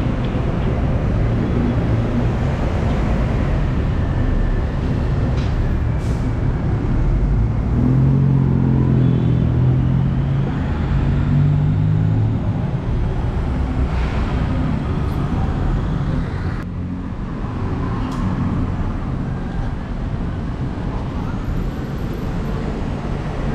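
Steady rumble of road traffic and vehicle engines, with one engine louder for a few seconds near the middle.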